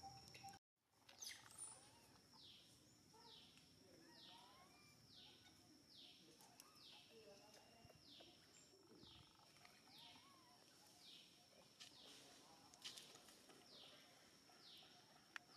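Faint outdoor wildlife ambience: a steady high-pitched whine with a short falling call repeated about once a second. The sound drops out completely for a moment about half a second in.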